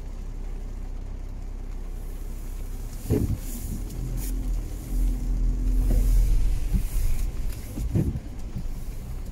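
Inside a car in the rain: steady low rumble of the engine and the windscreen demister blowers as the car moves off. The windscreen wipers sweep twice, about three seconds in and again near eight seconds.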